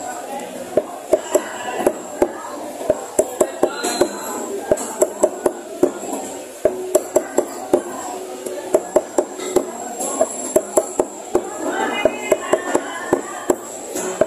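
Cleaver chopping on a thick round wooden chopping block, trimming the tips off chicken feet: quick sharp chops, about three a second, with short lulls.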